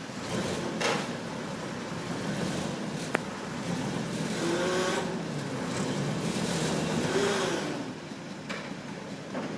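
An engine running, revving up and falling back twice. There is a single sharp click about three seconds in.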